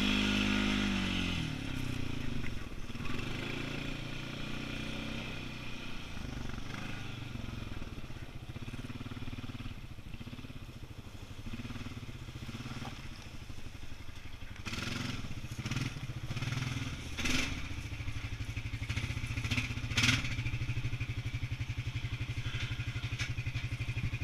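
ATV (four-wheeler) engine running at low speed, easing off about a second in, then pulling slowly and settling into a steady idle near the end. A few sharp knocks come through in the second half.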